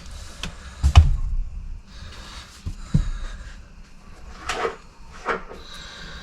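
Clunks and clinks of hydraulic valve parts and tools being handled. The heaviest thump comes about a second in and another about three seconds in, with a couple of lighter scraping clinks near the end.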